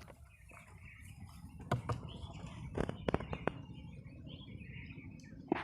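Small birds chirping, with several sharp clicks or knocks in the middle.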